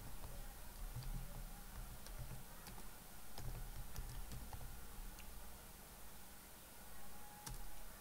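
Computer keyboard typing: faint, irregular key clicks.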